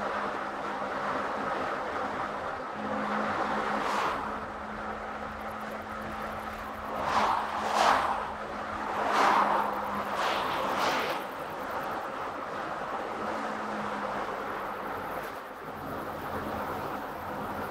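Car driving along a road: steady road noise with a faint low hum. A cluster of several brief whooshes comes about seven to eleven seconds in, the loudest sounds here.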